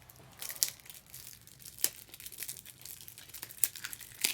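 Plastic packaging crinkling and rustling as top loaders, rigid plastic card holders, are pulled from their pack, with a few sharp clicks of stiff plastic.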